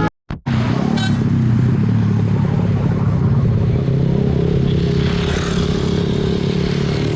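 Road vehicle engine running with a steady low drone, after a brief break in the sound just after the start; a steady higher tone joins in about halfway through.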